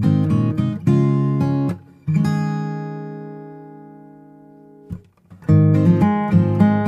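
Background music of strummed acoustic guitar. About two seconds in, a chord is left ringing and slowly fades, and the strumming starts again about five seconds in.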